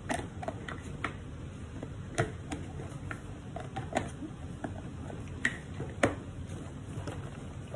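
Mouth sounds of eating homemade french fries: a handful of sharp, separate lip smacks and clicks, spaced a second or more apart, over a low steady room hum.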